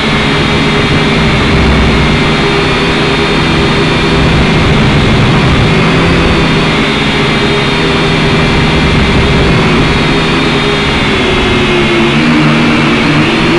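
Syma X5C quadcopter's four small electric motors and propellers whining steadily in flight, picked up close by the drone's own onboard camera. The pitch wavers and shifts a little near the end.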